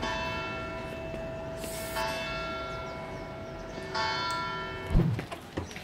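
Church bell tolling: three strikes about two seconds apart, each left ringing. A short dull thump comes near the end.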